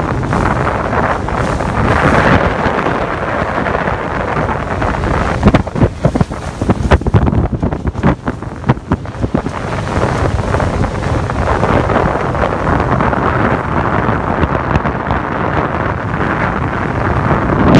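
Jet boat running fast up a shallow river: wind buffeting the microphone over the engine and rushing water. From about five to ten seconds in there is a run of irregular sharp knocks and buffets.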